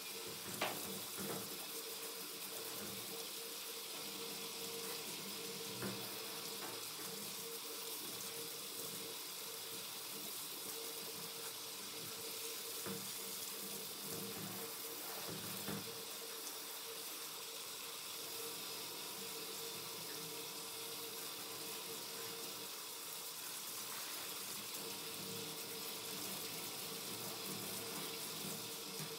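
Water spraying steadily from a handheld hose onto a wet dog's coat and splashing into a stainless steel sink, with a steady low hum underneath and a few small knocks.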